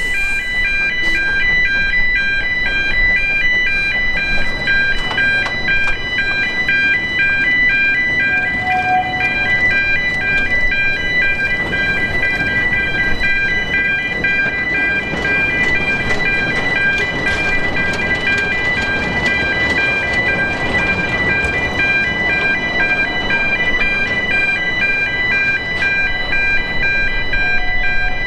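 Road crossing warning alarm sounding a regular alternating two-tone pattern, over the noise of a narrow-gauge train running along rails in the street.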